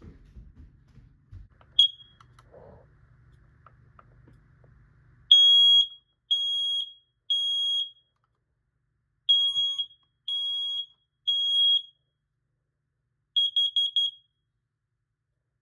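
Smoke detector sounding on test. One short high beep, then two rounds of three loud beeps with a pause between (the temporal-three fire-alarm pattern), then a quick run of about five short chirps.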